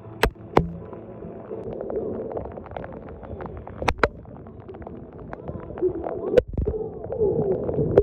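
Football stadium crowd: many supporters' voices calling and chanting together over a steady background hum, with a few irregular sharp taps.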